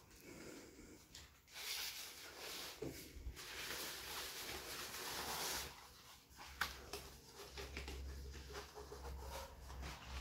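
Rolled decal sheets on paper backing being unrolled and spread out by hand: paper rustling and crinkling, most of it in a stretch of about four seconds starting a second and a half in, then lighter handling with a few small clicks.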